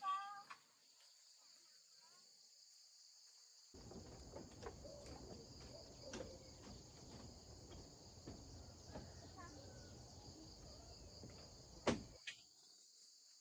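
Steady high-pitched chorus of insects. From about four seconds in a low rumbling noise joins, then cuts off abruptly near the end, just after a single sharp knock.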